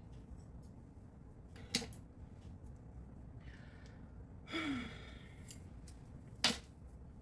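A person sighs once, a breathy exhale falling in pitch, about halfway through, with a single sharp click before it and another after it.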